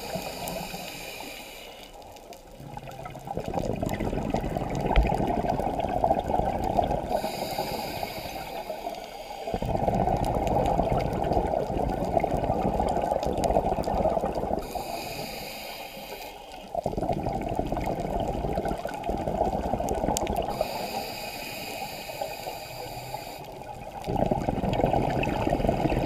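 Scuba diver breathing through a regulator underwater: a hiss on each inhale, then a long rush of exhaled bubbles, about four breaths in turn.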